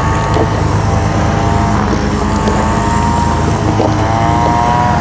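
Small petrol engines of a lawn mower and string trimmers running steadily, with a higher engine whine that wavers slightly in pitch over the low hum.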